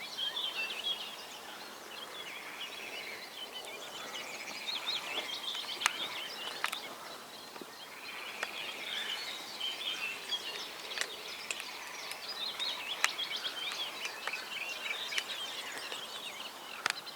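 Mallard ducklings peeping, a steady stream of short high chirps, with a few sharp clicks scattered through.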